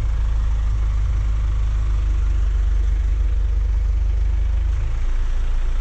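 Bucket truck's engine running steadily with a low drone, the lowest rumble shifting slightly about five seconds in.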